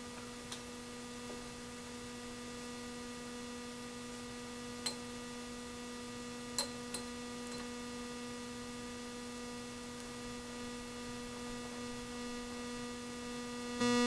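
Steady electrical mains hum, one low tone with a ladder of higher overtones, with a few faint clicks scattered through it. The hum steps up in level at the very end.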